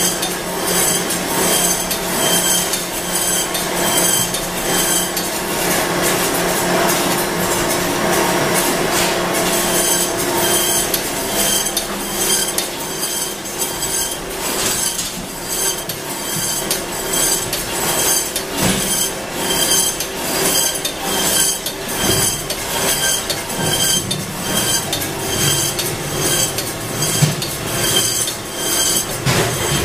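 Food-processing plant machinery running: a steady mechanical hum under a continuous run of rapid metallic clinks and rattles. The hum fades out about a third of the way in while the clinking goes on.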